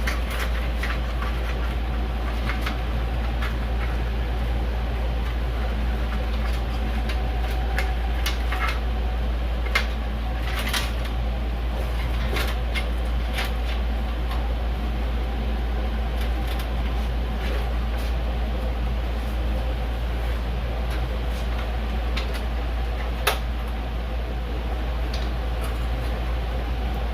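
Light clicks and taps of computer parts and hardware being handled, with two sharper clicks about 10 and 23 seconds in, over a steady low hum.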